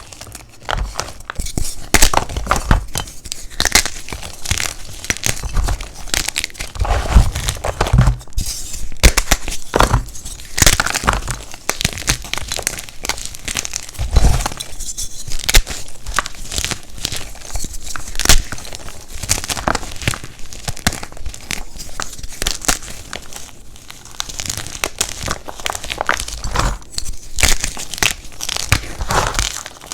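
Blocks of black-dyed gym chalk being crushed, a dense run of irregular crunching and crumbling crackles with a few heavier thuds.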